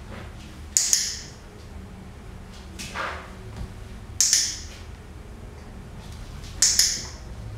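A dog-training clicker clicked three times, about a second in, about four seconds in and near the end, each a sharp quick double click (press and release) ringing briefly off the tiled room, marking the puppy's offered position for a reward. A softer short sound comes about three seconds in.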